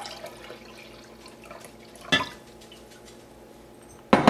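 Pineapple juice pouring into a glass measuring cup of Worcestershire sauce at the start. Then a sharp click about two seconds in and a louder knock near the end as bottles are handled on a stone countertop.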